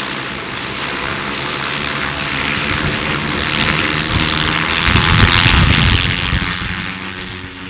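Electric eVTOL aircraft's propellers whirring with a dense hum of several steady tones as it takes off and hovers. The sound swells to its loudest about five to six seconds in, then fades near the end.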